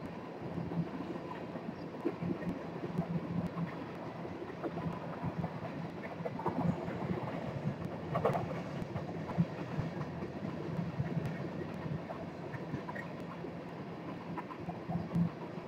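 Empty coal cars of a freight train rolling past, their wheels running on the rails in a steady rumble with scattered clicks and clanks.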